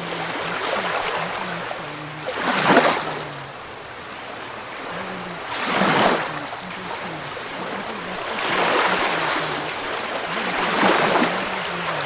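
Ocean waves washing in, with four surges that swell and recede about every three seconds over a steady hiss of water. Faint low notes of a soft melody run underneath.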